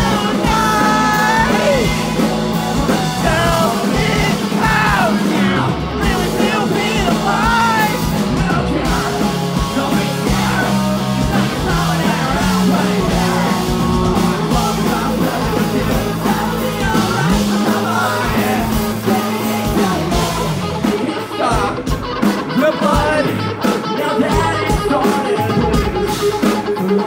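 A punk rock band playing live, with electric guitars, bass and drums under a singer's sung and shouted vocals. The sound is loud and dense throughout.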